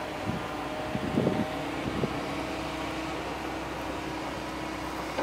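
Steady engine hum with a low droning tone, and a few brief knocks in the first two seconds.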